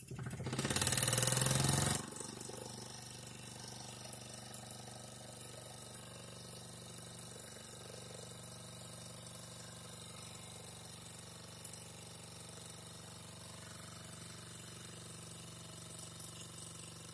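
Mamod live-steam toy traction engine letting off a loud rush of steam for about a second and a half as its lever is worked, then settling to a quieter steady sound.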